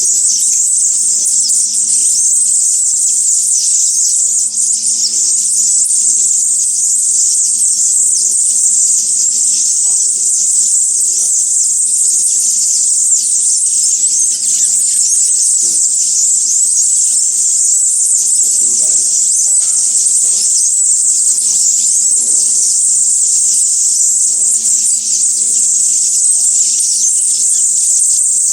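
Loud, steady, shrill high-pitched insect drone that never lets up, with a faint low hum underneath.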